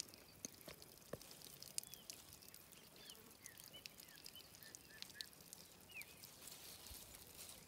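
Near silence, with faint, short bird chirps scattered throughout and a few soft clicks.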